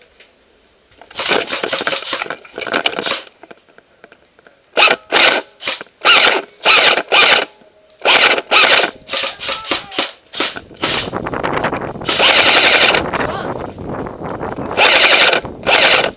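Airsoft AK-pattern electric rifle firing full-auto bursts close to the microphone. A couple of short bursts come about a second in, then many short bursts follow from about five seconds in, with one longer burst of about two seconds near the end.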